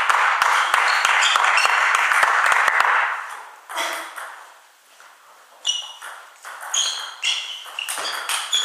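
About three seconds of clapping and cheering in the hall. After a short lull, a table tennis rally follows: the ball pings off the bats and the table in quick alternating hits.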